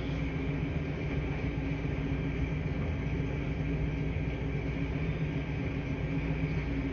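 Laundry machines running with a steady low hum and a few constant tones over an even hiss.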